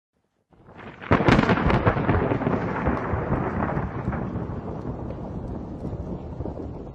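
A short swell, then a sudden loud crackling crash about a second in that trails off into a long rumble slowly dying away.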